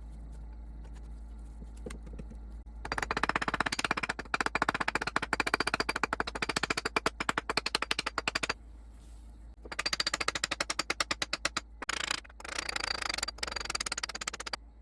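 Rapid rhythmic scraping on metal, a fast rattle of many short strokes a second, in three bursts: the first about three seconds in, the others near ten and twelve seconds.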